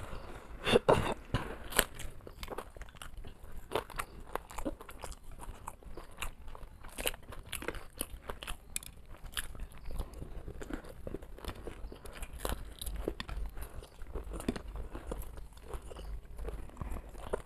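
Close-miked chewing and biting of a fried potato chop and a sandwich: a steady run of small crunches and mouth noises, with the loudest crunchy bites about a second in.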